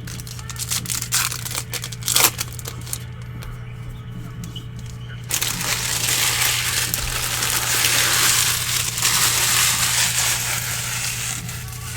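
Plastic wrapping on trading-card packs crinkling as it is handled and torn open: scattered crackles for about five seconds, then a louder, continuous crinkling.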